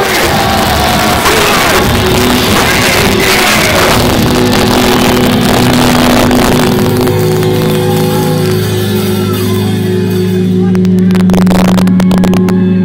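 Heavy metal band playing live through a loud PA, recorded from within the crowd. Fans cheer and shout over the band for the first few seconds. Then low guitar and bass notes are held and ring on, with a few sharp drum hits near the end.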